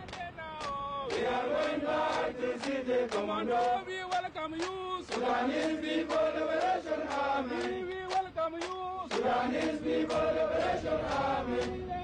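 Male voices chanting or singing together in unison over a steady beat of sharp strikes, about two to three a second.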